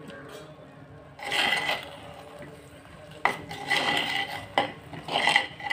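A spoon stirring thick sweet rice in a clay pot, scraping against the pot in three short bouts.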